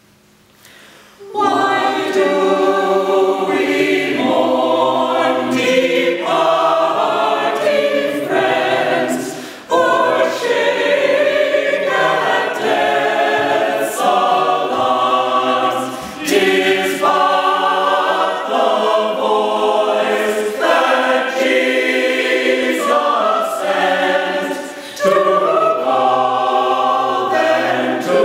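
Mixed choir of men's and women's voices singing a hymn, coming in about a second and a half in. It sings in long phrases with brief breaks for breath around 10, 16 and 25 seconds in.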